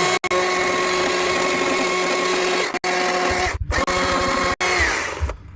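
Carving chainsaw running flat out and cutting into wood with a steady high-pitched whine, which drops off in pitch as it slows about five seconds in. The chain is getting blunt, as the carver remarks.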